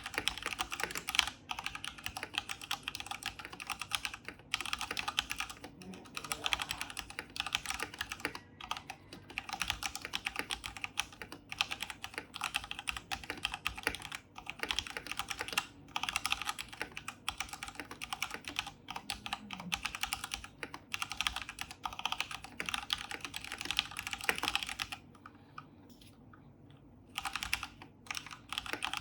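Typing on a DareU EK884 RGB mechanical keyboard with linear red D-Switch switches: a steady, fast run of irregular keystrokes. The typing stops for about two seconds near the end, then resumes.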